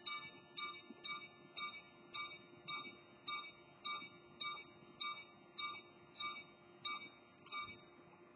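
Edmond Mathey-Tissot minute-repeater pocket watch chiming the minutes: a single gong struck by its hammer about fourteen times, roughly twice a second, the strikes spacing out slightly toward the end.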